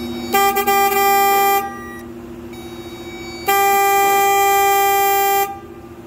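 2010 Jeep Patriot's horn sounding in two steady blasts, the first about a second and a half long and stuttering briefly as it starts, the second about two seconds. It is powered directly through a power probe, showing the horn and its wiring are good, which points the fault at the TIPM (totally integrated power module).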